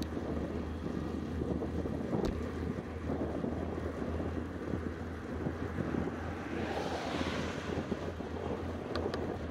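Steady wind buffeting on the microphone of a handlebar camera on a moving road bike. About two-thirds of the way through, a rushing swell like an approaching vehicle's tyres rises and fades, and a couple of light clicks come near the end.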